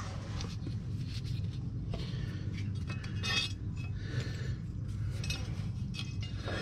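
Small metal mower-blade parts, the blade bolt and its spacers, clinking and scraping lightly as they are handled by hand at the deck spindle, with a few sharper clinks. A steady low hum runs underneath.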